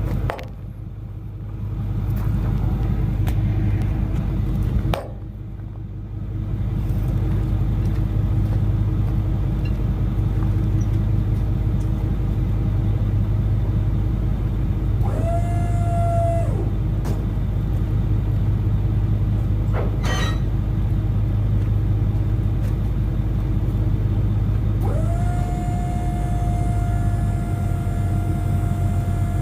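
An engine running steadily with a low rumble, with a knock right at the start and another about five seconds in. A steady whine comes in for a second or two midway and again a few seconds before the end.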